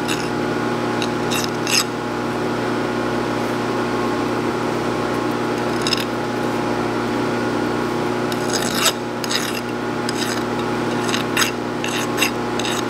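A handful of short hand-file strokes on a small metal key, taking a fraction of a thousandth off so it fits the shaft's keyway. A band saw runs underneath as a steady machine hum.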